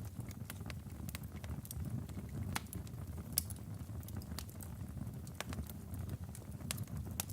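Log fire crackling, with irregular sharp snaps over a steady low rumble of the burning logs, one snap louder than the rest about three and a half seconds in.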